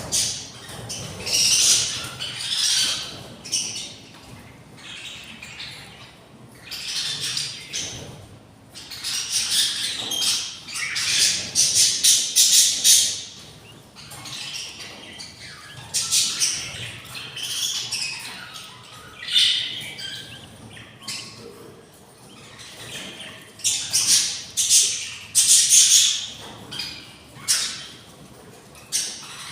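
Budgerigar chicks' hungry begging calls: repeated raspy, high squawks coming in bursts and clusters, with short pauses between.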